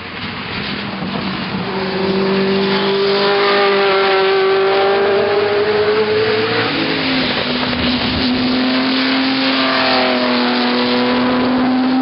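Ferrari racing car's engine at high revs, getting louder over the first few seconds and holding a steady, slowly rising note. About seven seconds in the pitch drops, then holds steady again.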